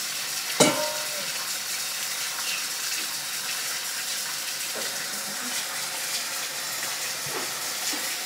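Kitchen faucet running steadily into a stainless steel sink. A metal mixing bowl clanks once with a short ring about half a second in, followed by a few light knocks.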